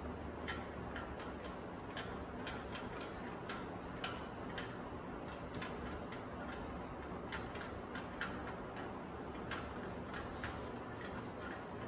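Faint, light metal clicks at uneven spacing, a few a second, as a custom drawbar is screwed down by hand into the top of an RF-45-clone mill-drill spindle until finger tight.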